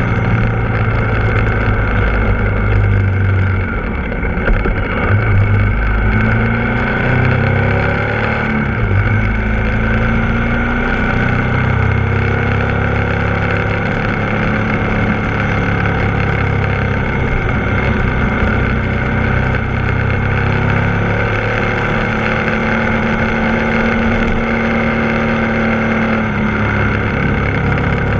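Ducati Multistrada 1260 S's 1262 cc V-twin engine running under way, its pitch rising and falling with throttle and gear changes.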